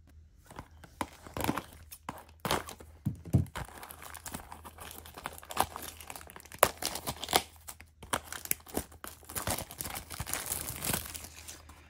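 Toy packaging being handled and opened by hand: irregular crinkling and tearing with sharp crackles and clicks.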